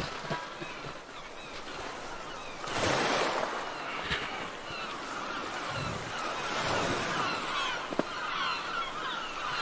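Ocean waves sound effect for a boat crossing: a washing hiss of surf that swells about three seconds in and keeps surging.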